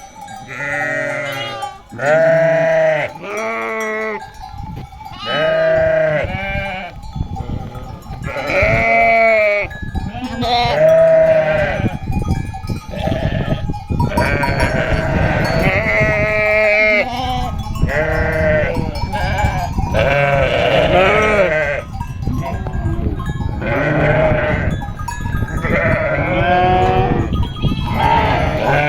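A flock of sheep bleating, many calls one after another and overlapping. From about eight seconds in, a steady low rumble runs underneath the calls.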